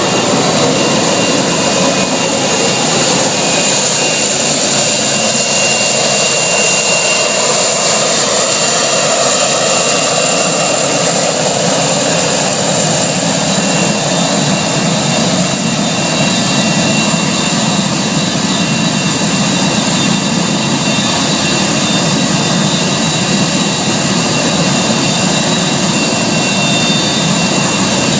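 Avro Vulcan XH558's four Rolls-Royce Olympus turbojets running at taxi power: loud, steady jet noise with high, steady whine tones. The mid-range character shifts slowly as the bomber taxis.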